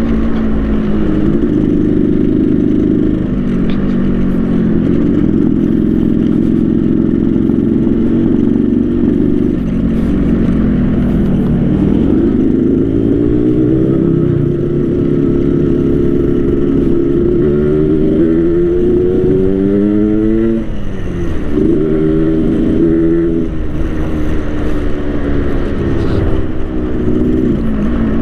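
Yamaha RX King's 135cc two-stroke single-cylinder engine under way, tuned 'ngorok' (snoring) with a split-baffle exhaust. The revs climb and fall back repeatedly, with several sharp climbs and drops in the second half.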